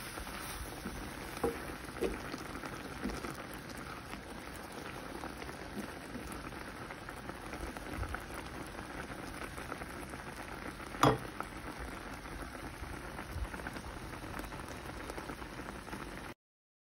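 Jackfruit slices simmering in sugar syrup in a pan, the syrup bubbling and sizzling steadily, with a silicone spatula stirring and tapping against the pan a few times, the loudest tap about eleven seconds in. The sound cuts off suddenly near the end.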